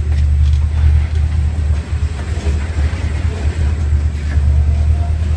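Herzog freight hopper cars rolling past close by: a steady low rumble of steel wheels on the rails.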